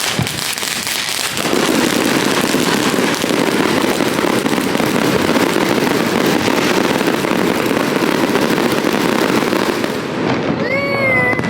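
Consumer firework going off: a dense, continuous crackling that starts about a second in and lasts about eight seconds.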